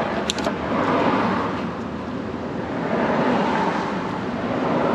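An engine running steadily, swelling and easing every couple of seconds, with a couple of sharp clicks about a third of a second in.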